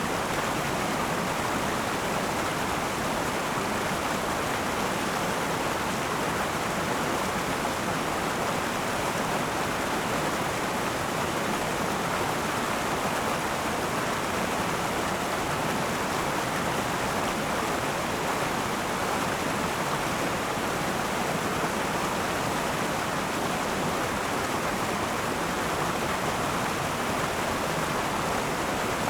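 River water rushing over rocks in a steady, even flow.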